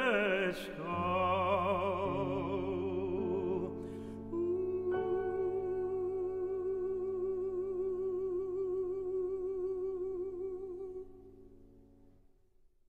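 Closing bars of a Russian romance: a male singer holds the final notes with wide vibrato over sustained piano chords. The voice stops about eleven seconds in, and the last piano chord fades away.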